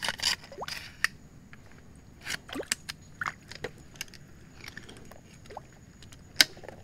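Water sloshing and dripping close to the microphone, with scattered small splashes, clicks and short bubbly gurgles, and one sharp click near the end.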